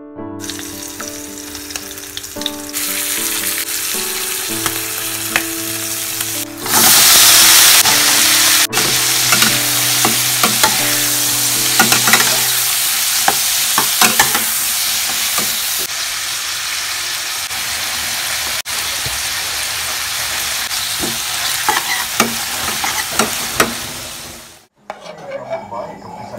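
Snap peas and baby corn stir-frying in a hot nonstick pan: a steady sizzle with the spatula scraping and tapping against the pan. The sizzle grows much louder about seven seconds in and stops suddenly near the end.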